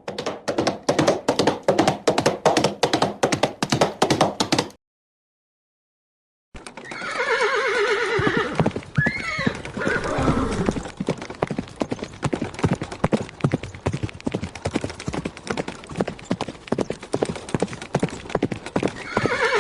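Horse hooves clip-clopping in a fast, dense run for about five seconds, then a gap of about two seconds with nothing. A horse then whinnies in a long falling call over more hoofbeats, and the hoofbeats run on to another whinny near the end.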